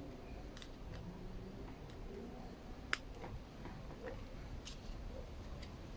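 Faint handling noises of a rubber fuel line and its clip being worked onto a string trimmer's primer pump, with scattered small ticks and one sharp click about three seconds in.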